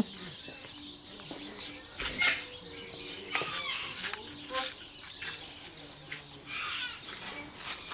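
Birds chirping and calling in short scattered notes, with a sharp knock about two seconds in and a few softer knocks and rustles.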